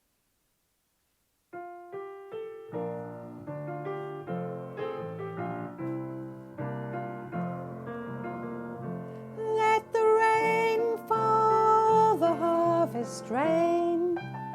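Piano introduction beginning about a second and a half in, with a soprano voice entering about ten seconds in, singing long held notes over the piano.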